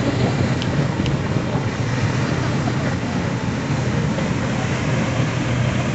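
Steady low engine drone of a motorised sailing junk passing close by on the harbour, over a constant hiss.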